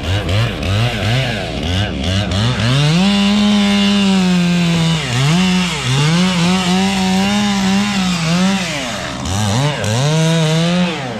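Chainsaw engine revved in a quick series of throttle blips, then held at high revs, dipping briefly a few times as it bogs in the cut. It slows near the end and revs up once more.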